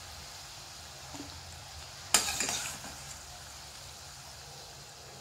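Oil frying steadily in a stainless steel kadai as fried poha-and-potato fingers are lifted out with a slotted spoon. About two seconds in there is a sudden loud burst that dies away within about half a second.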